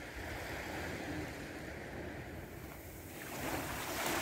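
Small sea waves washing at the shore, mixed with wind rumbling on the microphone; the sound swells a little about three seconds in.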